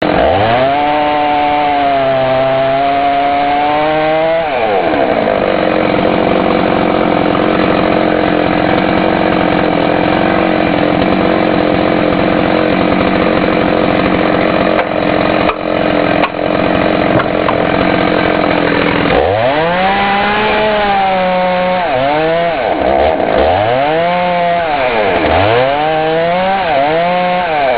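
Two-stroke chainsaw running at high revs, then its pitch drops about four seconds in and holds steady under load as it cuts into wood. Near the end the engine revs rise and fall again and again in quick swoops.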